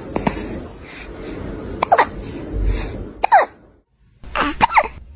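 A cat hiccupping several times. Each hiccup is a short sharp click with a quick squeak falling in pitch.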